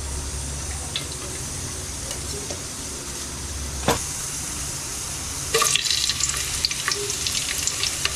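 Hot oil frying in a large aluminium pot, with one sharp tap about four seconds in; from about five and a half seconds in it breaks into a louder crackling sizzle.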